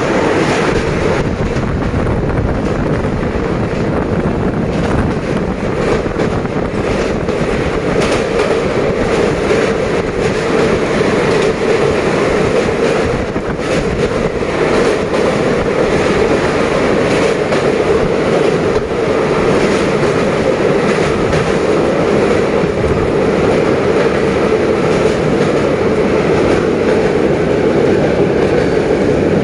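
Train running over a railway bridge, heard from on board: a steady, loud noise of wheels on the rails, with a few faint knocks.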